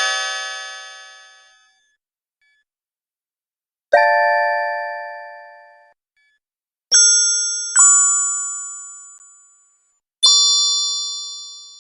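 Cute magic chime sound effects: a series of bright, bell-like dings, each struck sharply and fading away over about two seconds. One rings out at the start, new chimes come about four seconds in, twice in quick succession around seven to eight seconds, and again near the end, some with a wavering low tone beneath.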